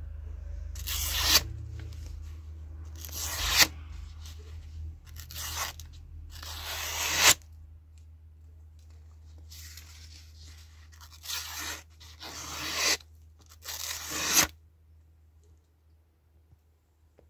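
A sharpened kitchen knife slicing through a sheet of paper in about eight separate cuts. Each cut is a short, hissing rasp that swells and stops sharply, the sign of a paper-slicing sharpness test.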